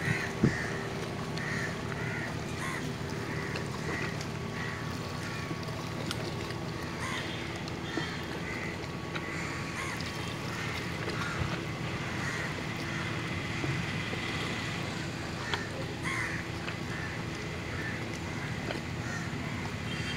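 Crows cawing repeatedly, about two calls a second, over a steady low engine hum. A sharp click sounds about half a second in.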